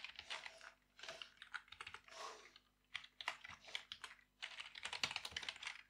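Computer keyboard typing in several quick bursts of keystrokes with short pauses between them.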